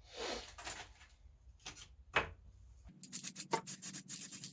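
Soft rubbing and handling noises, then from about three seconds in a quick run of short hissing spurts: paint being sprayed onto model parts in quick little squirts.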